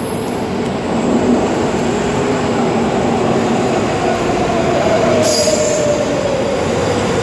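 LA Metro Red Line subway train pulling into an underground station and braking, with loud running noise of wheels on rail. About four seconds in, a whine sets in and falls slowly in pitch as the train slows. A short hiss comes a little after five seconds.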